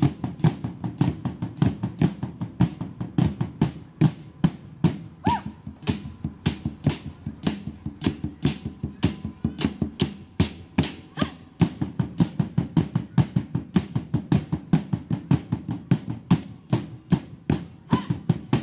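A drum beaten in a steady, even rhythm of about three strikes a second, each hit short and sharp.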